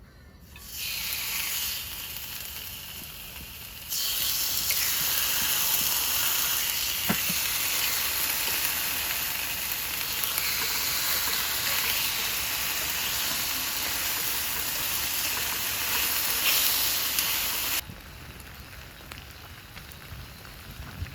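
Food sizzling in a hot pan, a steady hiss that gets louder about four seconds in and drops back shortly before the end.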